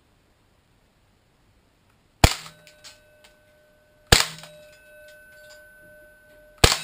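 Tokyo Marui Desert Eagle .50AE gas blowback airsoft pistol firing three shots about two seconds apart, each a sharp crack with the slide cycling, and a faint ringing tone lingering after them.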